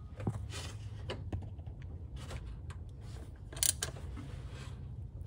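Scattered faint metallic clicks and taps of hand work on an intake manifold bolt, with one sharper click about three and a half seconds in, over a steady low hum.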